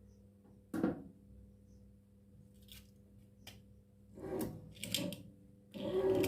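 Short rustles and scrapes of stiff insulation paper being handled and fitted into a ceiling-fan stator's slots. A sharp one comes about a second in and a cluster follows near the end, over a faint steady hum.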